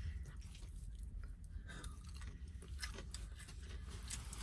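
Faint chewing of food close to the microphone, in small soft irregular clicks.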